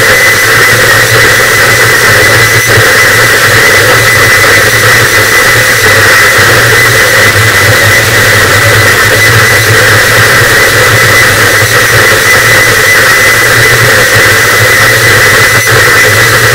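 Harsh noise wall: a loud, unchanging wall of dense distorted static, with a steady low rumble underneath and a thin steady tone on top.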